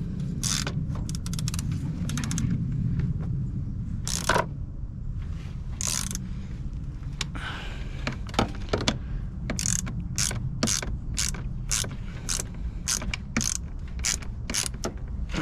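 Ratchet wrench clicking in runs of quick back-and-forth strokes as a bolt on the 4Runner's alternator mounting is tightened.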